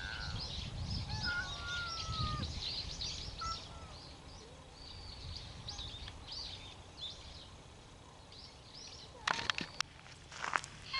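Many small birds chirping and calling from the wooded hillside, with a few longer whistled glides in the first seconds over a low rumble. A few sharp clicks come near the end.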